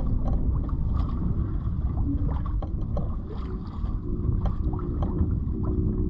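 Wind buffeting the microphone and water moving along the hull of a Catalina 27 sailboat under sail, with scattered small knocks.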